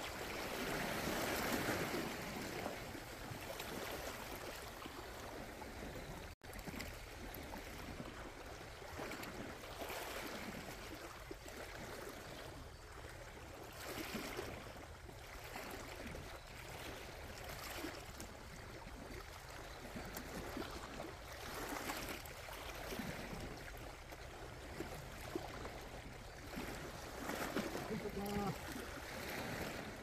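Sea waves washing against a rocky shore: a steady wash that swells and eases every few seconds. A brief dropout about six seconds in.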